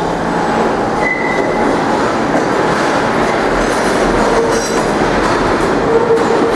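An R46 subway train pulling out of the station, its cars rolling past with steady wheel and rail noise. A brief high squeal sounds about a second in.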